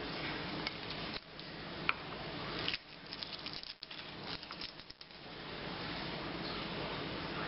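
Light clicks and crackles of papery garlic skin being pared off a clove with a small knife on a wooden cutting board, several close together in the middle, over a steady hiss.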